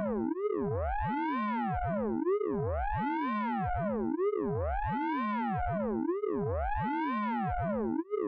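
Synthesized radar pulse train sound effect from the Orange Vocoder plug-in: a cluster of tones sweeping up and down together in a warbling arc, repeating about every two seconds.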